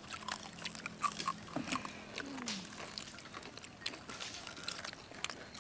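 Crunching and chewing of crispy deep-fried green papaya and carrot fritters, many quick sharp crunches one after another, with a short falling tone about two seconds in.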